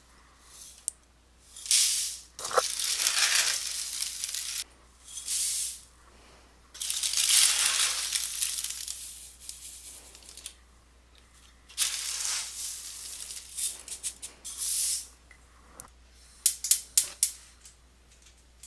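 Dry Rice Krispies cereal being poured and scooped with a glass measuring cup, in four rattling pours of a few seconds each. A handful of short sharp clicks follow near the end.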